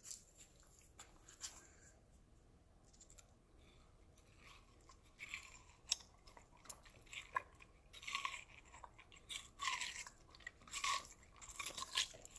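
A husky chewing a crunchy piece of food, with irregular crunches that come thicker and louder from about halfway through.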